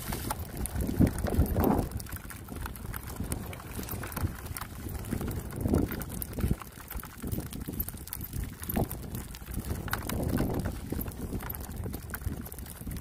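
Wind buffeting the microphone: a low rumble that swells in irregular gusts, with faint scattered ticks.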